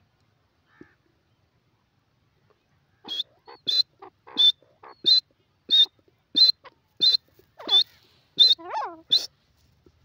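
Grey francolin calling: a run of about ten short, sharp, high notes at an even pace of roughly three every two seconds, starting about three seconds in. Near the end a lower, wavering sound comes in.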